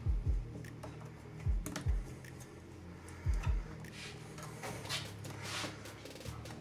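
Background music with a deep kick-drum beat, struck in pairs about every second and a half, over a sustained low bass. Faint scattered clicks sound under it.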